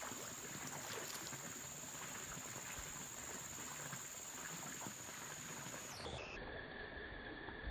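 Steady outdoor background hiss with a thin, steady high-pitched whine and a few faint ticks.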